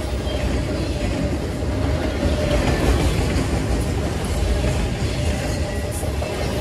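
Long freight train passing at speed: a steady rumble of steel wheels rolling on the rails.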